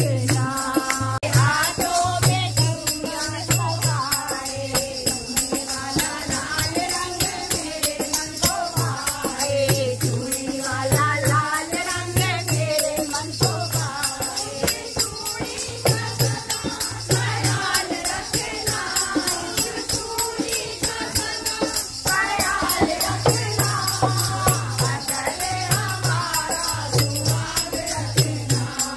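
Group singing a Hindu devotional kirtan song to the goddess. A shaken rattle-like percussion keeps a fast, even beat, and a low drum thumps in rhythm underneath.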